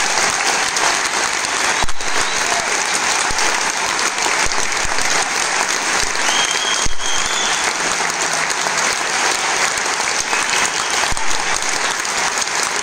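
Large audience applauding steadily in a big concert hall.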